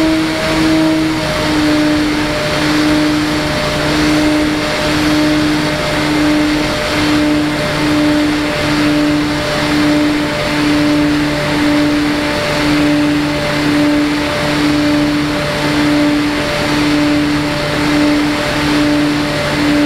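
Motors and propellers of an FPV model aircraft running steadily: a low hum over a rushing propeller noise, swelling and fading about once a second. The hum dips slightly in pitch about a second in.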